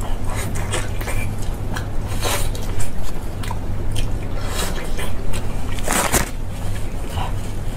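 Close-miked eating: wet, squishy bites and chewing into sticky, sauce-braised meat on the bone, with lip smacks. The loudest bite comes about six seconds in.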